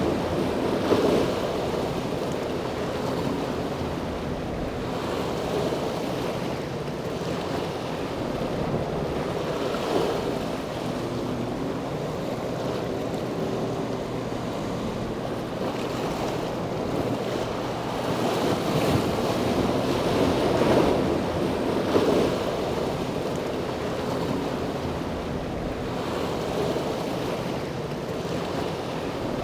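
Wind gusting on an outdoor microphone over washing harbour water, swelling and easing every few seconds, with a faint steady low hum underneath.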